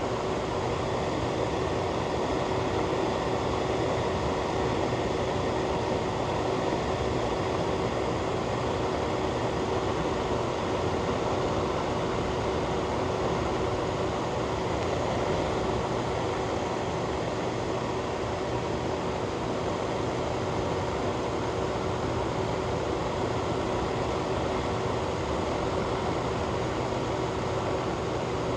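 Fan or ventilation unit running steadily: a constant whoosh of moving air with a steady mid-pitched motor hum underneath.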